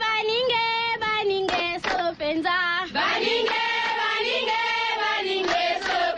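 Sung radio drop in an African tribal style: voices chanting and singing in long, wavering notes.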